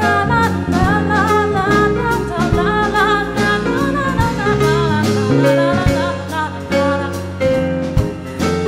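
Pop song playing: a bending lead melody, sung or played, over bass, chords and a steady drum beat.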